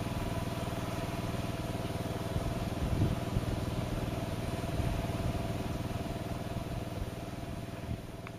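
A steady low mechanical hum like an idling engine, with a few faint low knocks.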